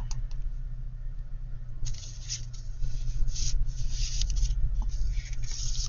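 Paper and card rustling and sliding as handmade journal pages are handled and turned, in several brief rustles from about two seconds in, over a steady low hum.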